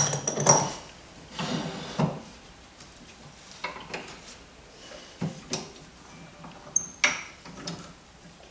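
Scattered knocks, clicks and clunks of wood and metal being handled at a wood lathe while a misaligned workpiece setup is readjusted. The lathe is not running.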